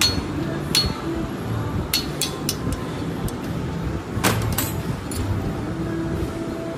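Sharp metallic clinks of steel parts and tools being handled while a single-punch tablet press is put together, the loudest about four seconds in, over a steady low workshop rumble.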